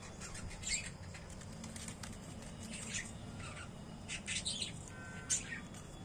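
Caged budgerigars giving short, sharp chirps and squawks: scattered single calls, with a quick cluster about four seconds in.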